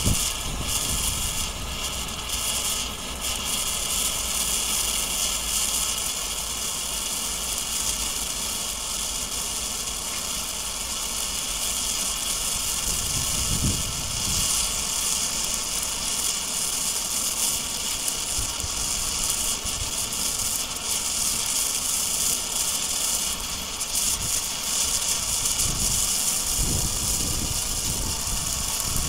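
Hand-held blue pyrotechnic flare burning with a steady high hiss, with brief low rumbles about halfway through and near the end.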